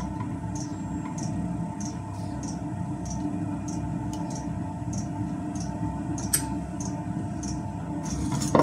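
Diesel heater running on its lowest setting: a steady fan hum with its fuel dosing pump ticking evenly, a little under twice a second. One sharper click about six seconds in.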